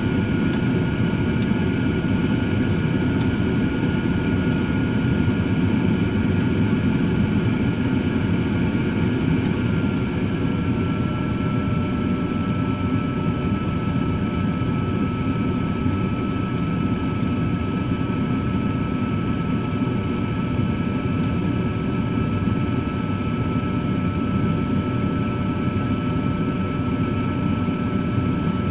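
Cosori 13-quart air fryer oven running: a steady fan whir with a constant whine that dips slightly in pitch about ten seconds in, just after a light click.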